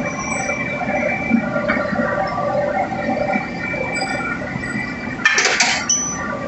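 Forging press machinery running in a forge shop, a steady hum with a few held tones over it, and one short, loud noisy burst a little past five seconds in.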